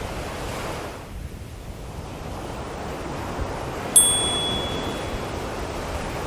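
Ocean waves washing steadily, with a single high bell strike about four seconds in that rings and fades over about a second. The bell is the two-minute interval signal for a Reiki session.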